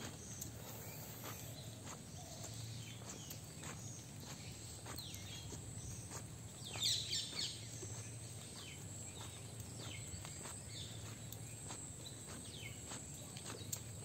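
Footsteps on a wet brick path at a walking pace, with small birds chirping around; a louder burst of bird calls comes about halfway through.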